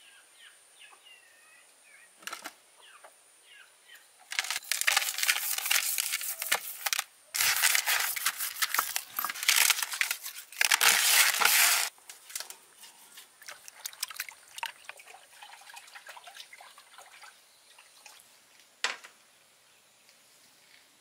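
A gutted fish being washed and rubbed by hand in a basin of water: three loud stretches of splashing and sloshing about four to twelve seconds in, then quieter handling with one sharp knock near the end.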